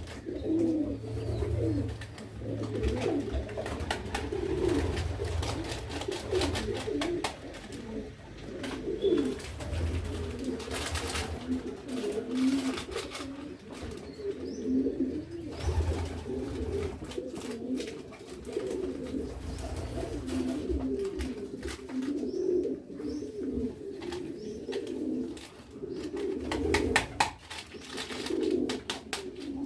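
Domestic pigeons cooing continuously, low wavering coos overlapping one another, with scattered short clicks and knocks from handling.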